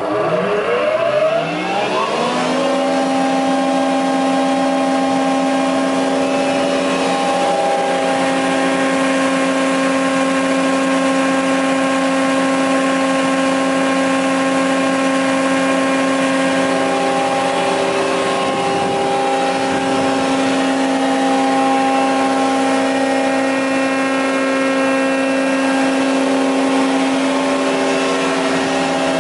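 ŻEFAM DSZA 40 jointer switched on: its electric motor and cutterhead spin up, the whine rising in pitch over about two seconds, then run steadily at full speed with a steady whine, with nothing being cut.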